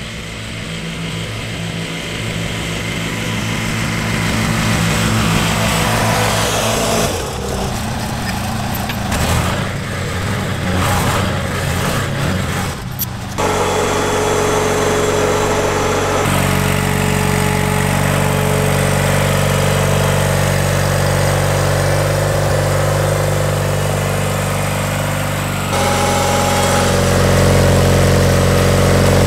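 Steiner 420 lawn tractor's engine running as it drives closer, growing louder, with a stretch of knocks and rattles midway. Then the engine runs steadily close up, louder for the last few seconds.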